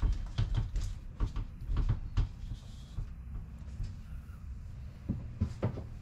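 Knocks and clunks of a folded-up Murphy bed panel being pushed shut against its wall cabinet, several in quick succession over the first two seconds, then a few more knocks near the end.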